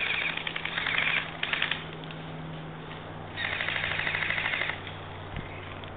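Airsoft rifles firing rapid full-auto bursts: a burst of about a second, a short one just after, then a longer burst of about a second and a half a little past the middle.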